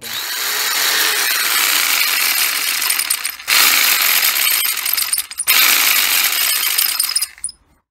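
Hitachi FCJ55 jigsaw running with no load, rough-sounding from its dry, ungreased gearing. It drops out briefly twice, about three and a half and five and a half seconds in, and stops shortly before the end.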